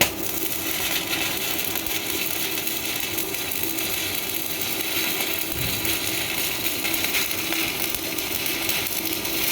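Stick-welding (SMAW) arc from an E6013 mild steel electrode at about 105 amps, struck by scratching the rod on the workpiece and then held to run a bead: a steady crackling hiss that starts suddenly and cuts off at the end.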